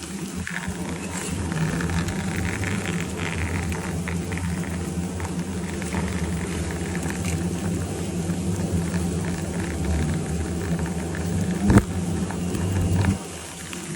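A swarm of insects buzzing steadily, with a single sharp knock about twelve seconds in. The buzzing drops away suddenly about a second before the end.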